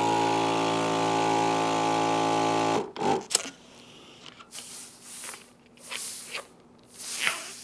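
Lagenda electric balloon inflator running with a steady motor hum as it fills a 260 modelling balloon, cutting off about three seconds in. After that, softer rubbing and squeaks of the inflated latex balloon being handled.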